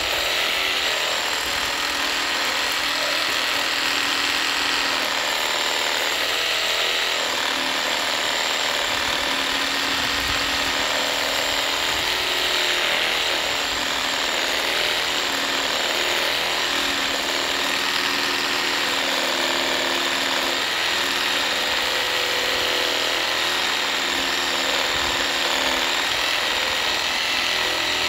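SKIL SW1E3475CA 20V brushless cordless reciprocating saw running steadily under load, its blade sawing through a log: a continuous high motor whine over the noise of the cut, without a break.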